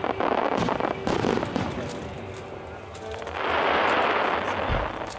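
Starmine fireworks: rapid crackling and popping bursts, then a loud rushing hiss about three and a half seconds in, followed by a low thump near the end.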